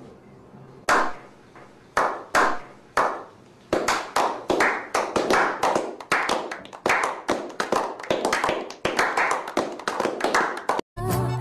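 Hand clapping by a small group: a few slow single claps, about one a second, that build after a few seconds into steady applause. It cuts off abruptly near the end as music starts.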